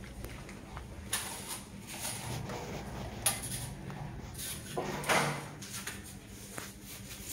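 Short, scattered scrapes and knocks of a trowel working wet cement onto a plastered wall, several strokes a second or so apart, the loudest about five seconds in.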